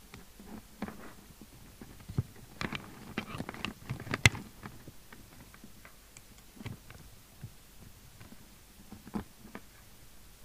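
Irregular small clicks, taps and rustles of hands handling cables, connectors and the plastic case of an opened CB radio on a workbench. The clicks cluster around the middle, the sharpest just after four seconds in.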